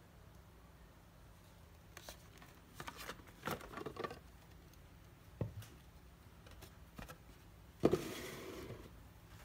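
Cardboard boxes handled by hand: light rustling and clicking scrapes, a single knock midway, then a louder knock with a brief scrape near the end as a box is set down on a wooden table.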